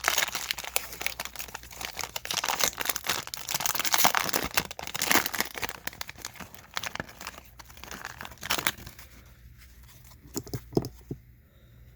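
Packaging of a jumbo pack of trading cards being torn open and crinkled, a dense crackling for most of the time. It dies down in the last few seconds to a few soft clicks.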